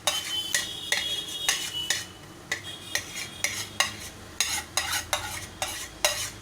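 A spoon stirring masala in a cooking pan, scraping and knocking against it at about two strokes a second, over a faint sizzle of the masala frying.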